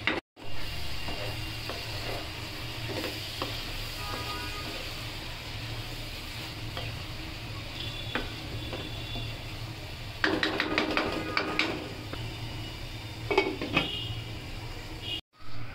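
Chopped onion leaves and tomatoes sizzling in a non-stick wok. A wooden spatula stirs and scrapes the pan in a burst about ten seconds in. A short clatter follows near the end as a glass lid is set on the pan.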